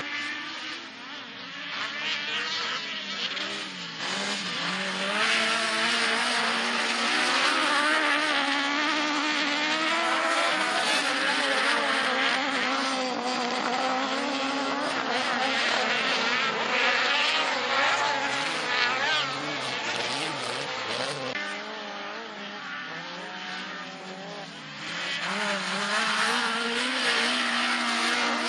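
Several autocross touring cars racing on a dirt track, their engines revving hard with many engine notes rising and falling over one another. The sound swells from a few seconds in, eases off briefly past the middle, and rises again near the end as the pack comes round.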